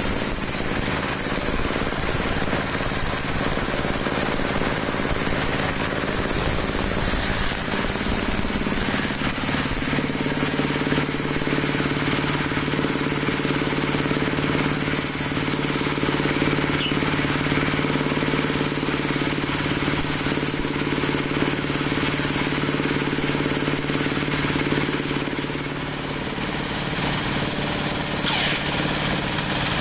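Dowel machine for making broom handles running steadily, a motor-driven hum made of several steady tones with a constant high whine above. Its tone changes about ten seconds in.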